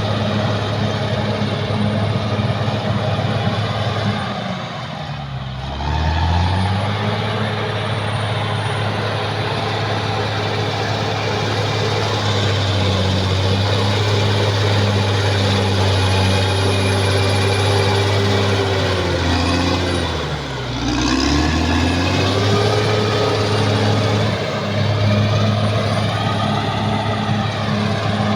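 Caterpillar D6R XL bulldozer's diesel engine running hard, with a wide clattering noise over the engine. Twice, about five and twenty seconds in, the engine note sinks sharply and then climbs back up.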